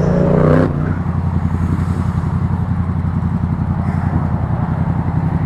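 Motorcycle engine running steadily, a low pulsing drone, with a short higher tone over it at the very start.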